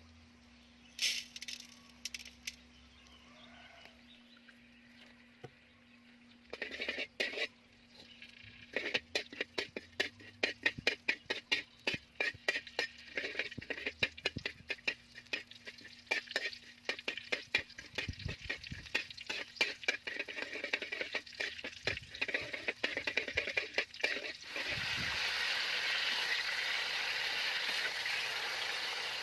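Food preparation: quick, irregular clicking, rattling and scraping of a utensil or knife working, dense from several seconds in, giving way near the end to a steady hiss like food sizzling.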